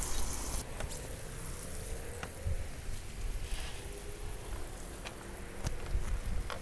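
Faint outdoor background noise with a few light clicks and taps spread through it, and a faint hum that glides slowly in pitch.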